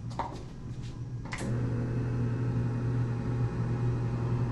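A steady low machine hum, with two short clicks in the first second and a half; the hum grows louder after the second click.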